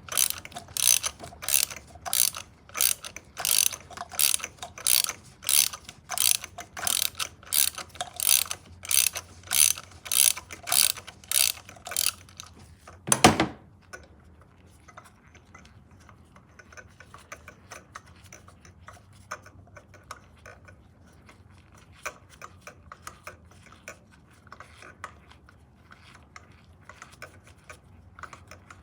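Socket ratchet wrench clicking in an even rhythm, about two clicks a second, as it is worked on a spark plug. About halfway through comes a single loud clank, followed by faint scattered ticks and clicks.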